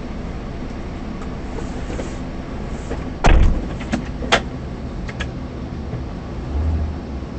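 Steady low running noise of a police patrol car, heard inside the cabin. About three seconds in there is a loud, heavy thump, followed about a second later by two sharp clicks, and near the end a brief low hum.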